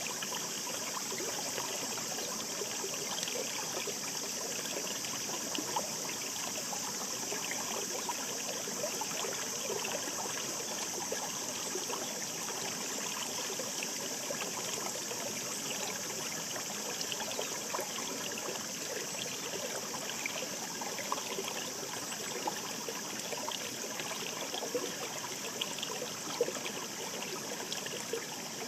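A shallow mountain stream babbling over rocks: a steady rush of water with small splashes and trickles scattered through it.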